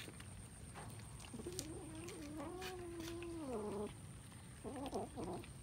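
A cat gives a long, low, wavering yowl of about two and a half seconds that drops in pitch at its end, then a shorter call about a second later, over faint scattered clicks of cats eating.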